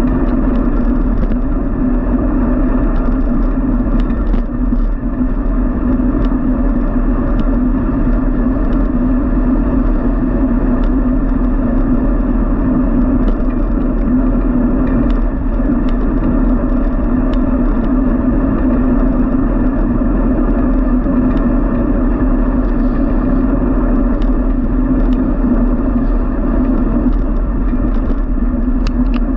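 Steady road and wind noise of a bicycle riding along a city cycle lane, recorded from a camera on the moving bike, with a few faint ticks and rattles scattered through it.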